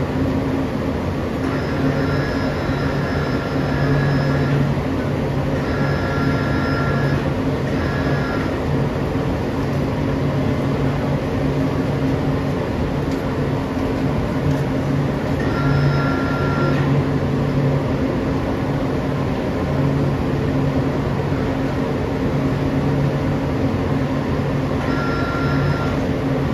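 Steady rumbling noise of a foundry furnace and the flames as molten bronze is poured into a bell mould, over a constant low hum. Brief high, whistle-like tones come and go several times.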